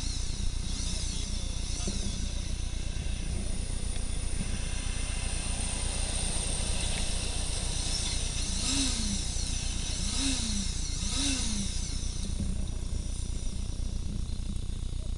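Steady low engine rumble from motorcycles and road traffic. Around the middle a truck passes, and a few short rising-and-falling tones are heard.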